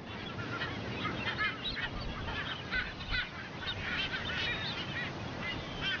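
A seabird colony calling: many short, high-pitched calls from many birds at once, overlapping without pause over a steady background noise.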